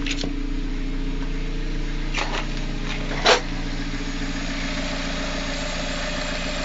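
Lada Vesta's 1.8-litre four-cylinder petrol engine idling steadily with a freshly refitted timing belt and rollers; the loud whistle is largely gone, but a roller still runs noisily. A brief sharp noise sounds about three seconds in.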